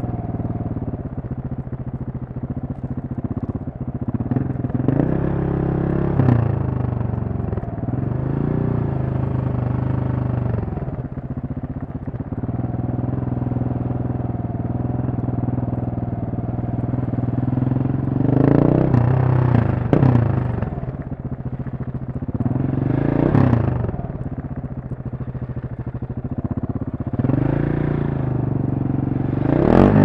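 KTM 690 Supermoto's single-cylinder engine running at low revs in slow traffic. It rises and falls in pitch several times as the throttle is opened and closed, with a few sharp cracks at the peaks.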